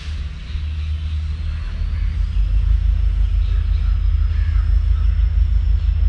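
Low engine drone of an approaching WDP4D diesel locomotive, with its EMD two-stroke V16, growing louder about two seconds in.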